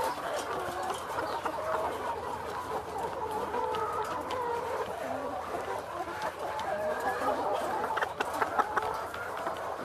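A caged flock of four-month-old brown layer pullets clucking and calling over one another in steady chatter. A quick run of sharp taps comes about eight seconds in.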